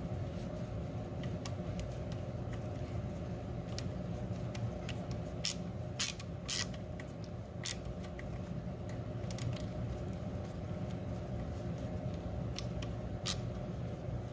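Metal tools and parts being handled: a scatter of sharp metallic clicks and clinks, about five louder ones in the middle and near the end, over a steady low hum.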